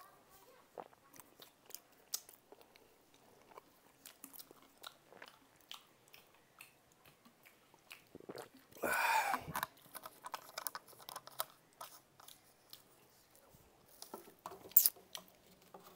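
Close-up mouth sounds of people eating burgers and fast food: soft chewing clicks and crunches throughout. A louder rush of noise lasts about a second halfway through, and a single sharp knock near the end is the loudest sound.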